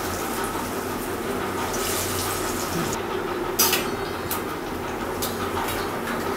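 Bottle-gourd koftas deep-frying in mustard oil in a steel pan: a steady sizzle. From about halfway through, the steel slotted spoon clinks sharply against the pan several times.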